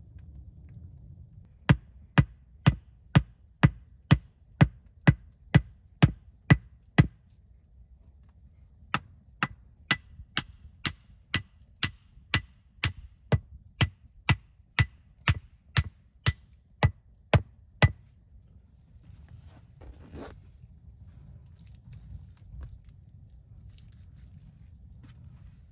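A hatchet knocking a forked wooden stake into the ground, about two sharp blows a second: a run of about a dozen, a short pause, then nearly twenty more.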